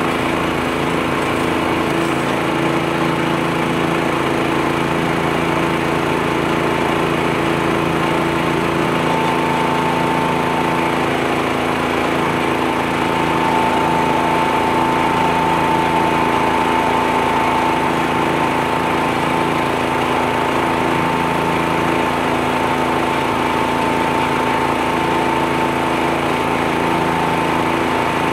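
Steady machine running at constant speed: several unchanging hums with a high whine that comes in about nine seconds in and grows stronger.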